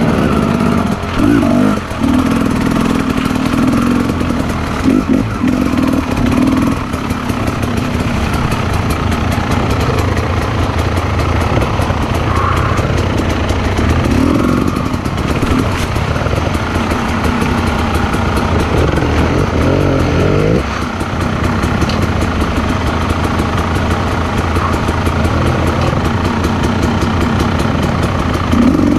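Motorcycle engine running on a trail ride, its pitch rising and falling with the throttle.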